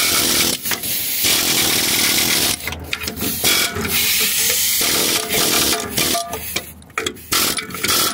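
Pneumatic air hammer rattling rapidly against the rusted front shock mount of a 1997 Jeep Wrangler, shaking loose rust. It runs in one long burst and then several shorter ones with brief pauses.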